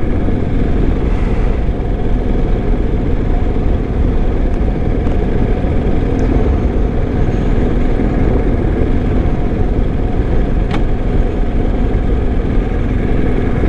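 BMW R1250 GS motorcycle under way: its boxer-twin engine runs steadily under heavy wind and road noise. One short click comes about eleven seconds in.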